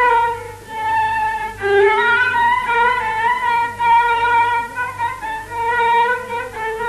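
Instrumental break in an Iraqi rifi song: one melody instrument plays an ornamented line with sliding, wavering pitch over a soft, repeating low beat.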